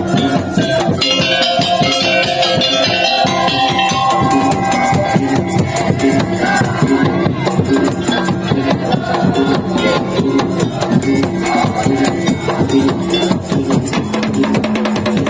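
Madurese tongtong percussion music: a dense, steady rhythm of drums, slit drums and rattling percussion, with a melody line held above it.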